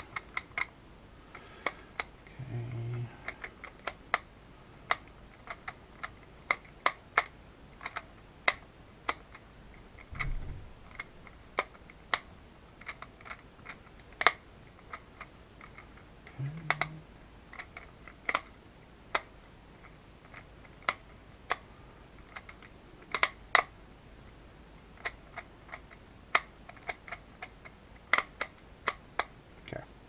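Custom magnetic Rubik's Clock being worked by hand during a solve: a steady run of sharp, irregular clicks, one to a few a second, as the pins are pushed and the dials turned. A few soft low thuds come in between.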